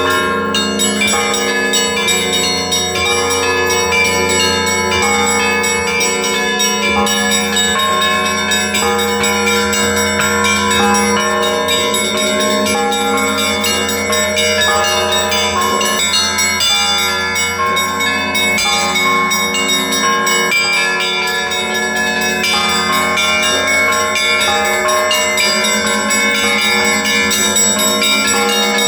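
Church bells ringing: many bells of different pitches sounding together in a continuous, dense peal, the tones overlapping and ringing on without a break.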